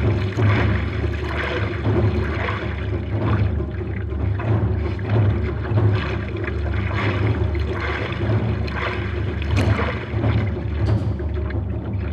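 Hands stroking through the water on both sides of a prone paddleboard. Splashes come in a steady rhythm of about one a second, over the steady rush of water along the board.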